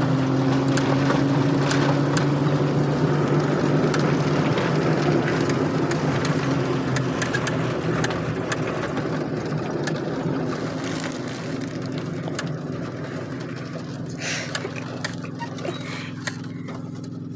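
Car engine running while driving over a rough dirt track, heard from inside the cabin, with tyre noise and rattling of the body. The engine hum fades in the second half as the car slows, with a single knock about fourteen seconds in.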